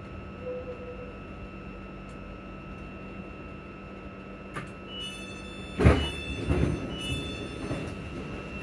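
ScotRail Class 334 electric train standing at a station platform with a steady hum from its onboard equipment. About halfway in, the door warning beeps sound three times, about a second apart, and the sliding passenger doors open with a loud knock and rattle.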